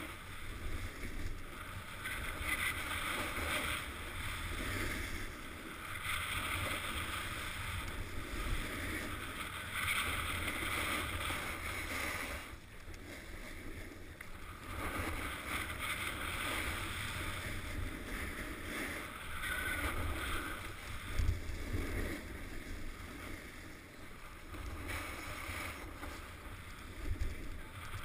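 Edges sliding and scraping over packed, groomed snow during a downhill run. The hiss swells and fades every few seconds with each turn, and there is a quieter lull about halfway through. Wind rumbles on the microphone throughout.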